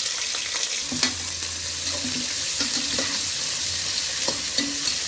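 Onions sizzling steadily in hot oil and ghee in a pressure cooker, with a utensil knocking against the pot about once a second as they are stirred.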